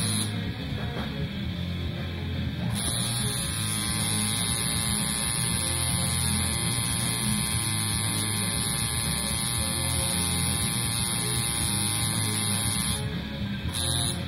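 Electric tattoo machine buzzing steadily while the needle works on the skin. It runs from about three seconds in until about a second before the end, with short bursts at the start and near the end, over background music with a bass line and guitar.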